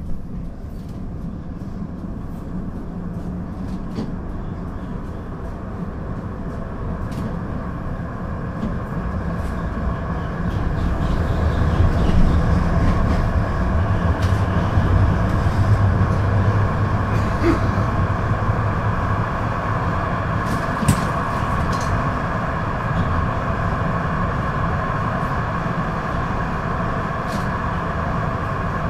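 Duewag GT8 eight-axle articulated tram, built 1969, under way on the rails: a steady running noise that grows louder about ten seconds in and stays up, with a few sharp clicks along the way.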